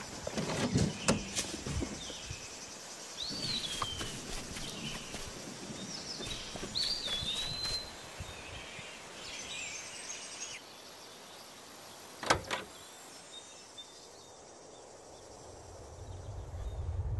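Woodland ambience with birds chirping, and the small clicks and knocks of someone handling a vintage car's side window as it is lowered. One sharp knock comes about twelve seconds in.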